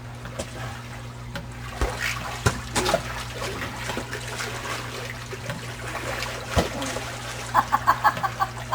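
Pool water splashing and trickling, with a few sharp knocks and a quick run of short bursts near the end.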